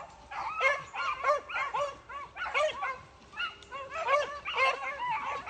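A pack of beagles baying while running a swamp rabbit's trail: quick, overlapping yelping calls from several hounds, with a short lull about three seconds in.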